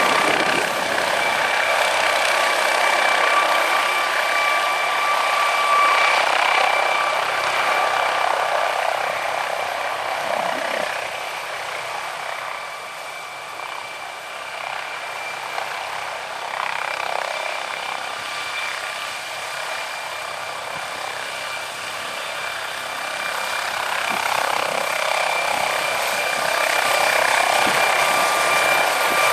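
MD 902 Explorer helicopter's twin turbine engines running, a steady high whine over a rushing engine noise. It eases off somewhat in the middle and builds back up near the end.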